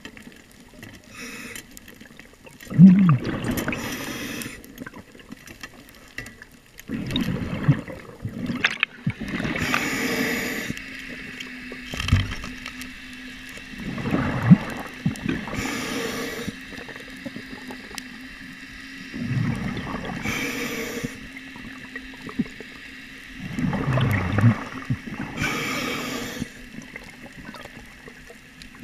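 Scuba diver breathing through a regulator underwater: a hiss on each inhale and a low bubbling rumble on each exhale, one breath roughly every five seconds.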